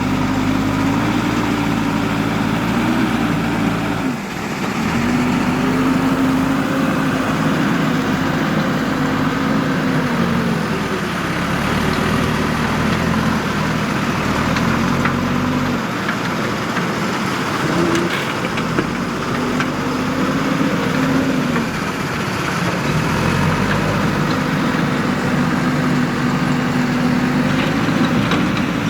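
Diesel engine of a JCB 3DX backhoe loader working, its pitch rising and falling over and over as it takes load and eases off, over a steady low rumble.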